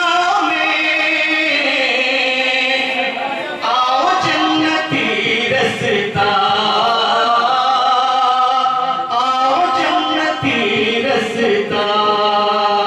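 A man chanting devotional Urdu verse unaccompanied into a microphone, in long, drawn-out melodic phrases.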